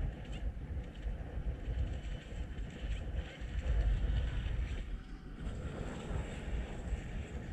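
Radio-controlled boat running at speed across the water as it passes close by, under wind buffeting the microphone; the low wind rumble is the loudest sound.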